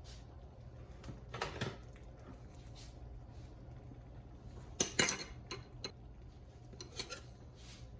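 A metal utensil clinking and knocking against a pot and dishes in a few separate strikes, the loudest about five seconds in, over a low steady hum.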